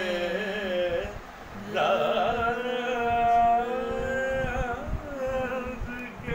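A man's voice singing a melodic recitation unaccompanied, drawing out long held notes that waver slightly, in three phrases with short breaths between them.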